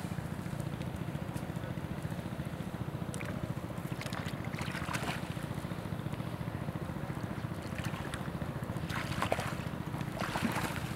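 Water sloshing and splashing as a person wades through shallow, muddy water, in two spells, about four seconds in and again near the end. Under it a steady low rumble.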